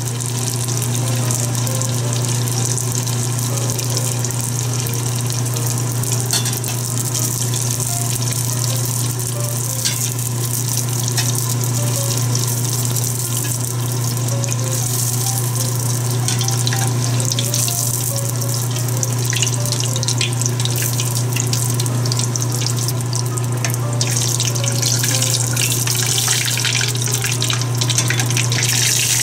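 Egg roll deep-frying in a saucepan of hot vegetable oil: a steady sizzling hiss with scattered crackles, over a steady low hum.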